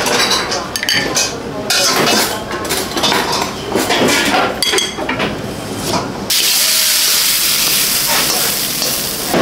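Light clinks of dishes and a spoon on a serving tray, then about six seconds in a loud, steady hissing sizzle from the wok station as a stir-fry of bean sprouts, cabbage and meat is tipped from the wok onto a metal plate.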